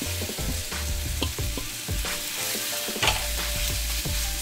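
Cornstarch-coated chicken pieces sizzling in hot oil in a non-stick frying pan. Metal tongs click and tap against the pan several times as the pieces are laid in and moved about.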